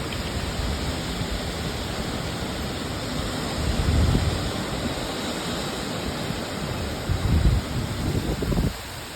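Heavy hurricane rain pouring down in a steady hiss, with wind gusts buffeting the microphone as low rumbles about four seconds in and again near the end.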